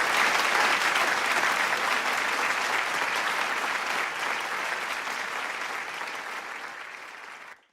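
Large crowd applauding, a dense mass of handclaps that slowly fades away and then cuts off abruptly near the end.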